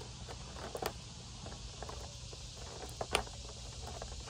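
Fingers picking and pulling at product packaging while trying to get it open, giving scattered small clicks and crackles, the loudest about three seconds in.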